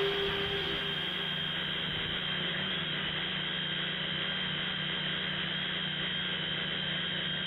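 Tricopter's electric motors and propellers running steadily, heard from on board the craft: a steady hum with a constant low tone under an even rushing noise.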